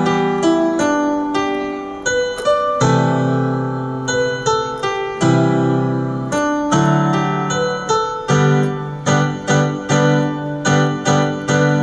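Keyboard in a piano voice playing a melody over held low chords, with notes struck in a steady run and chords changing every second or two.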